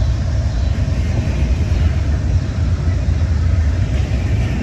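Union Pacific freight train rolling past, a loud steady low rumble of wheels on rail with no horn sounding.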